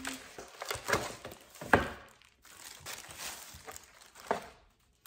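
Clear plastic wrapping crinkling and rustling as a tray is pulled out of it and out of a cardboard box, with scattered knocks of handling; the loudest is a sharp knock a little under two seconds in.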